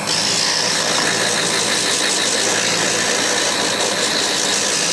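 Small electric wood lathe running at steady speed with a motor whine, while coarse sandpaper is held against the spinning wooden stem of a float, adding a steady sanding hiss.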